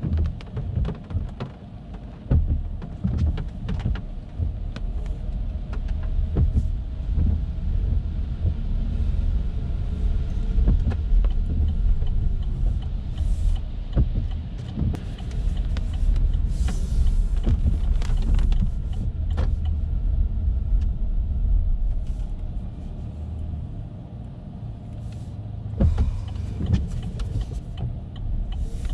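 Car driving on wet city streets in light rain: steady low tyre and road rumble with scattered ticks and clicks, and a faint rising-then-falling whine about ten seconds in.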